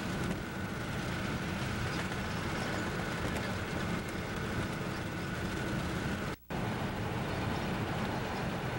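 Steady rolling noise of a freight train of covered hopper cars, mixed with the road and wind noise of a car pacing alongside, with a faint steady high whine running through it. The sound cuts out for a moment about six and a half seconds in.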